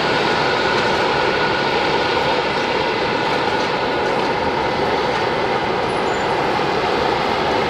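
Jet engines of taxiing airliners: a steady rushing noise with a faint steady whine in the first half.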